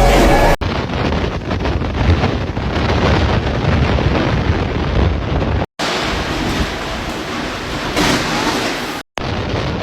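Strong storm wind rushing and buffeting the microphone, with a heavy low rumble. The sound cuts out abruptly for a moment twice, a little before six seconds in and about nine seconds in.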